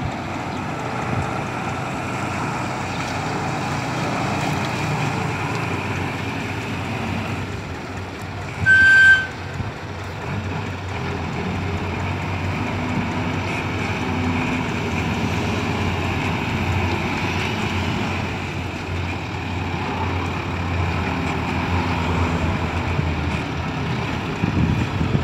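Isuzu six-wheel dump truck's diesel engine running steadily as the loaded truck crawls across soft, muddy ground. About nine seconds in, a single short, loud high-pitched beep sounds.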